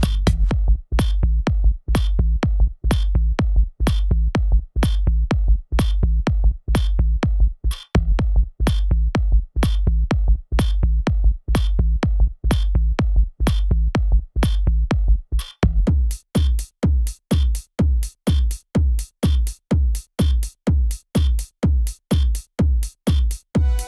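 Background electronic dance music with a steady drum-machine beat at about two beats a second over a heavy bass. About two-thirds of the way through, the sustained bass drops away, leaving separate punchy bass hits on each beat.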